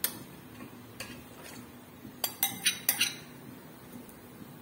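A steel serving spoon clinking and scraping against a stainless-steel bowl as marinated chicken pieces are scooped and turned over, with a quick run of about five clinks a little past the middle.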